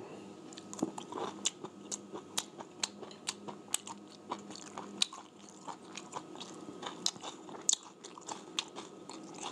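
A person chewing food close to the microphone, with a steady run of sharp crunches and mouth clicks, several a second.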